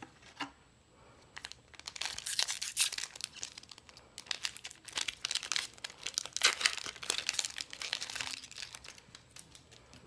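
Trading-card booster pack wrapper crinkling and tearing as it is handled and opened, crackling rustle in two louder stretches.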